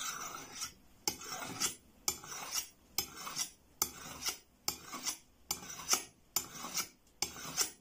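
Steel kitchen knife edge being sharpened by drawing the spine of a second knife across it in single one-way strokes, a short metal-on-metal scrape about once a second, honing one side of the edge.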